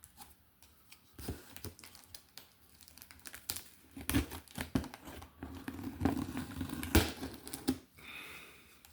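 Packaging being handled and pulled open by hand, a run of crinkles, crackles and short rips. The sounds are sparse at first and come thick and fast from about four seconds in.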